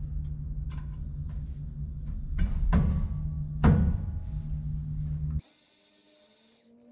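Metal clinks and knocks of a wrench working the rear U-joint strap bolts on a driveshaft, the loudest a little over two and a half seconds in and again near four seconds. Under them runs a steady low hum. It cuts off abruptly a little past five seconds, leaving a brief high hiss.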